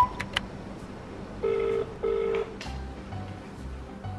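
Telephone ringing tone on a call: one double ring, two short steady tones a moment apart, about one and a half seconds in, over background music with a bass line. A sharp click comes right at the start.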